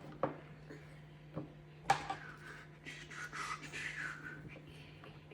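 Light knocks of plastic fan parts being handled, the loudest about two seconds in, then a second or two of a damp cloth rubbing over the plastic fan blades as they are wiped clean. A faint steady low hum underlies it.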